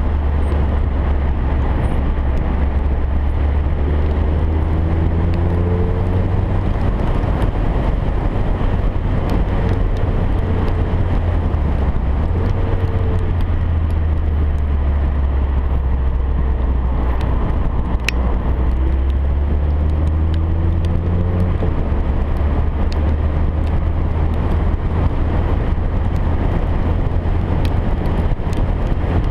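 Onboard sound of a vehicle lapping a race track at speed: a steady heavy low rumble dominates, with the engine note rising and falling fainter beneath it several times as it accelerates and eases off. There is a single sharp click about two-thirds of the way in.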